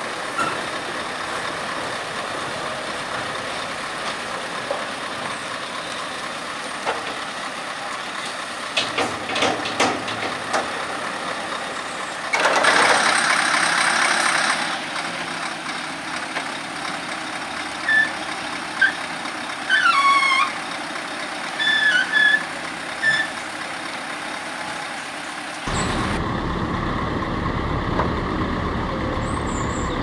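Cat TH407 telehandler working as it tips chopped maize from its bucket into a lorry's trailer, machine noise throughout. A loud hiss lasts about two seconds near the middle, a few short high beeps follow, and a heavier low rumble takes over for the last few seconds.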